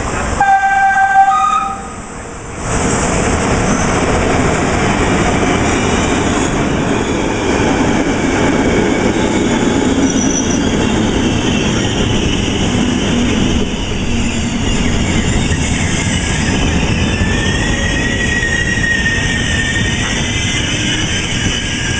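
Two-tone horn of an FS E656 electric locomotive sounds briefly about half a second in, a lower note then a higher one. The express coaches then roll past steadily, with a thin high wheel squeal late on.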